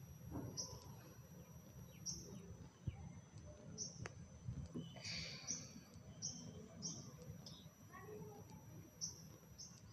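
Faint, high bird chirps repeating every second or so, over a low steady background hum.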